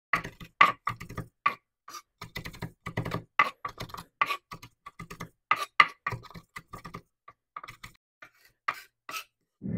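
Chef's knife chopping fresh parsley on a wooden cutting board: quick, uneven knocks of the blade on the board, several a second, thinning out near the end.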